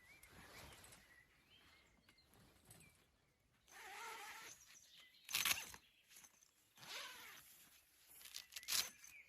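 An animal's short whining calls, with a few sharp rustling knocks; the knock about halfway through is the loudest sound.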